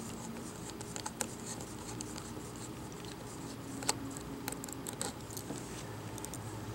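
Small screwdriver turning out a metal hinge screw from a Dell Chromebook 11 3120's plastic base, giving a few faint, scattered clicks and light scrapes of the tool tip in the screw head, over a steady low hum.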